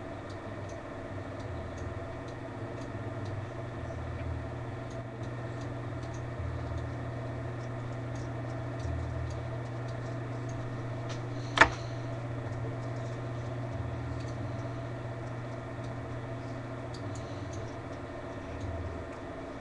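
Steady hum of a computer with faint mouse clicks scattered through while drawing on screen, and one sharp loud click a little past halfway.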